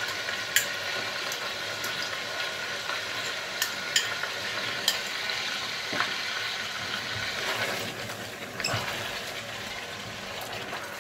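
Chicken pieces sizzling in hot ghee in a steel pot as a yogurt-and-spice marinade is stirred in with a silicone spatula. There are a few light clicks of the spatula against the pot.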